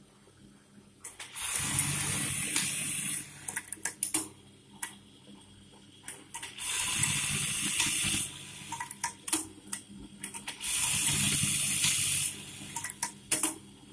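Brother 814-2 buttonhole sewing machine sewing three short buttonhole cycles, each a steady whir of about two seconds that starts and stops sharply. Clicks and knocks come between the cycles.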